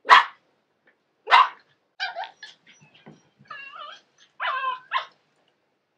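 Small dog barking sharply twice. Then a run of shorter, quieter yips and wavering whining grumbles.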